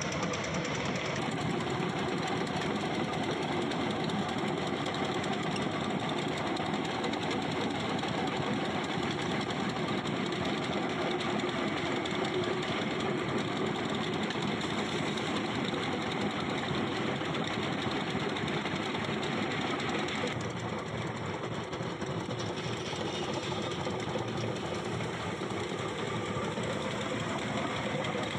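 Spun-pipe (hume pipe) spinning machine running steadily: a steel concrete-pipe mould turning on its drive wheels as concrete is spun into the pipe wall. A little past two-thirds of the way through, the sound becomes slightly quieter and duller.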